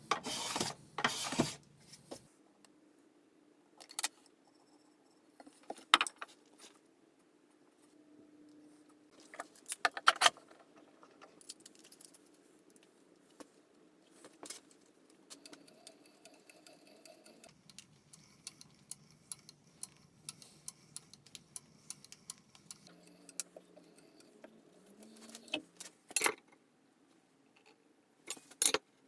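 Workshop handling sounds of hand tools and wood on a bench: scattered sharp clicks and knocks, with a cluster of rattling knocks at the start and a few single louder taps later.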